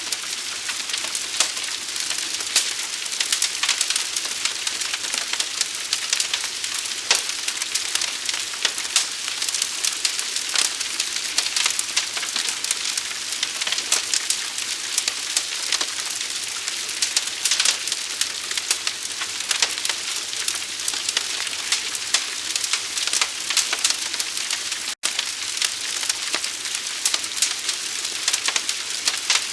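Forest fire burning: a steady hiss with dense, rapid crackling pops from the burning wood. The sound drops out for a split second about 25 seconds in.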